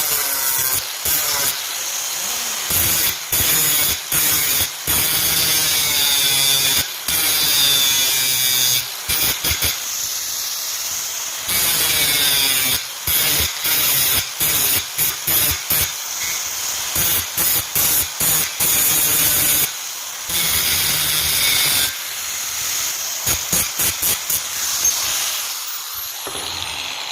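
A hand-held power tool running and cutting off over and over, in bursts of a second or two with short pauses between. Near the end it gives several quick blips.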